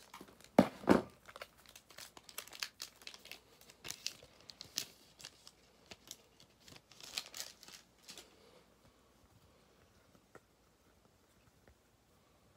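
Foil trading-card pack wrapper crinkling and tearing as the pack is opened and the cards pulled out: a run of quick crackles, the two loudest just under a second in, dying away about eight seconds in.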